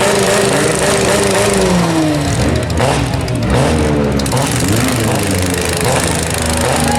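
Several compact derby cars' engines revving at once, their pitches rising and falling against each other.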